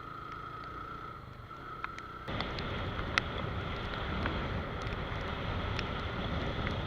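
Suzuki Gixxer motorcycle riding in the rain, with wind and road noise rushing over the microphone and a steady whine. About two seconds in the rushing noise jumps up suddenly and stays louder, with scattered sharp ticks.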